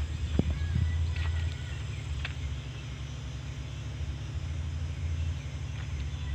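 Bulldozer's diesel engine idling: a steady low rumble with a fast, even pulse.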